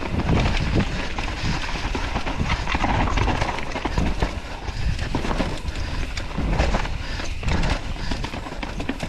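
Electric mountain bike riding down a steep, rough dirt chute: tyres rolling and skidding over dirt and rocks, with the bike rattling and knocking over the bumps.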